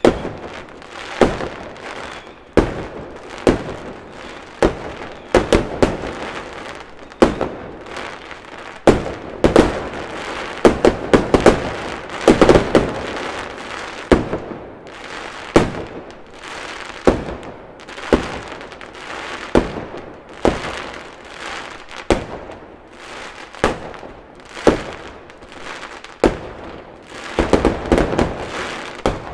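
A fireworks display: repeated sharp bangs at irregular intervals, some in rapid clusters, each trailed by crackling, over a continuous rumble of further bursts.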